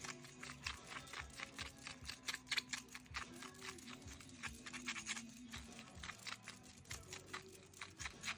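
A wooden stick stirring pink silicone paint in a glass bowl, clicking and scraping against the glass several times a second at an uneven pace, over faint low sustained tones.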